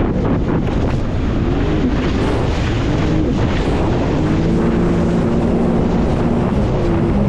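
Jet ski engine running at speed, its pitch rising and falling with the throttle, under heavy wind buffeting on the microphone.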